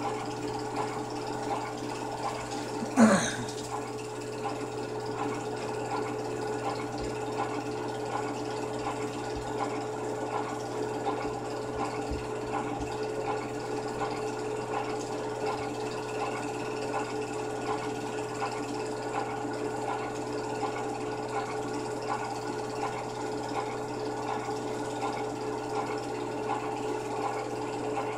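Home-movie film projector running with a steady mechanical whirr and hum. About three seconds in, a brief louder sound slides quickly down in pitch.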